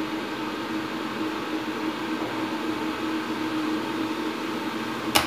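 Bosch stainless-steel electric kettle heating water with a steady hiss and hum. Just before the end its switch clicks off once, sharply, cutting out before the water has boiled: the fault the kettle is being repaired for, which lies in its thermostat switch.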